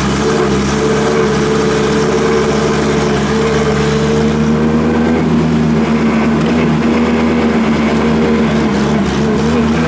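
Wheeled Hyundai Robex excavator's diesel engine running steadily under load as the machine digs and swings a bucket of soil. The engine note sags slightly about halfway through and picks up again near the end.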